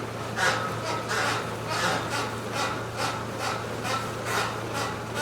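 A goat making short rhythmic rasping sounds, about two a second, over a steady low hum.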